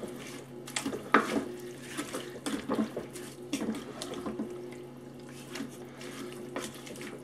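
Wooden spoon stirring sliced beef and vegetables through a soy sauce and water mixture in a slow cooker pot: wet sloshing and stirring with irregular small knocks of the spoon against the pot.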